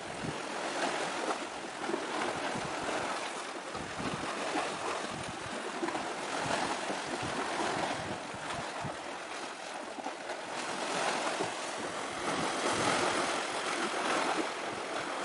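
Steady wash of sea waves with wind noise, swelling and easing in level, and occasional low gusts buffeting the microphone.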